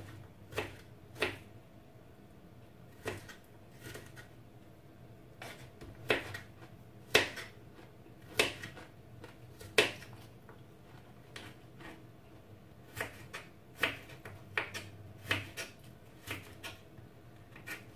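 Kitchen knife slicing a cucumber on a plastic cutting board: sharp, irregular taps as the blade strikes the board, roughly one a second, with a lull of a few seconds partway through.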